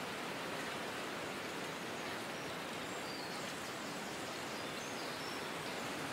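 Steady, soft, rain-like hiss with a few faint high chirps in the middle: the nature-ambience noise bed that opens an electronic music track.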